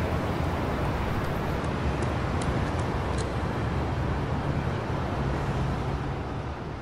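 Street traffic noise: a steady rumble of passing cars, fading away near the end.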